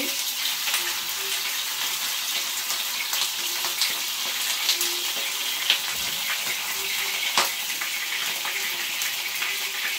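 Pork crépinettes frying in hot oil in a pan, browning: a steady sizzle with a few sharp pops and crackles scattered through it.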